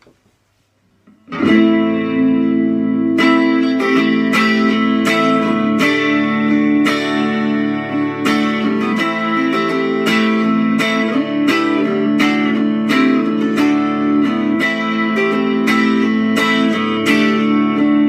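Fender Telecaster 12-string electric guitar played through an amplifier on its neck pickup alone. A chord rings out about a second in, then strummed chords follow at an even pace.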